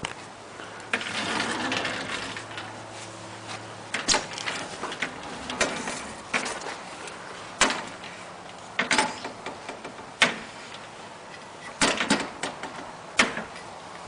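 Sliding glass door knocking and rattling in its frame as a baby grips and bangs on the frame and glass: sharp, irregular knocks, one every second or two.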